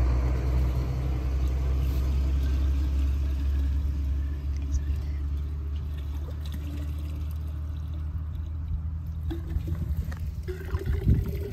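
Vehicle engine idling with a steady low rumble, while gasoline pours from a plastic gas can into a metal drip torch.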